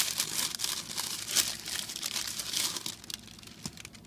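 Wrapping paper being unfolded and handled, crinkling and rustling in irregular bursts that die down after about three seconds.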